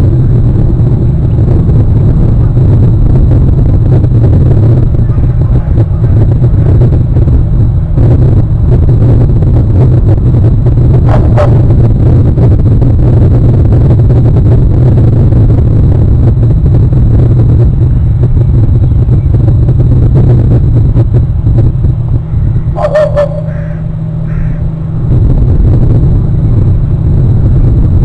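Heavy wind buffeting the outdoor microphone, a loud steady rumble that eases briefly about two-thirds of the way through. A bird calls briefly three times over it, about eleven seconds in, again after a lull, and at the very end.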